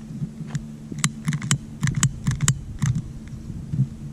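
Long-nosed butane utility lighter being clicked again and again, a quick irregular run of sharp clicks as it is worked at a firework fuse. A steady low hum runs underneath.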